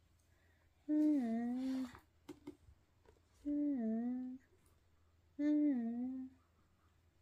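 A voice humming three short closed-mouth 'mmm' sounds, each dipping in pitch and then held for about a second, about one, three and a half and five and a half seconds in.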